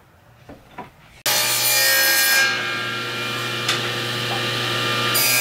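Table saw running and cutting a wooden board, which the owners believe is teak: a loud, steady whine and hum that starts abruptly about a second in, its high hiss easing off in the middle and returning near the end. Before that, faint room tone with a few small clicks.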